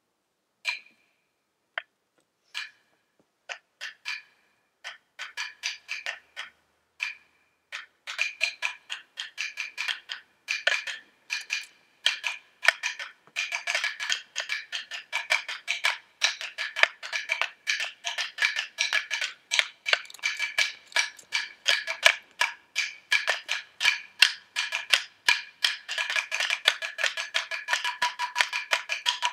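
Two pairs of hand-held wooden sticks knocked together with a bright, woody clack. Single, spaced knocks at first; from about eight seconds in they build into a fast, dense clatter that keeps going.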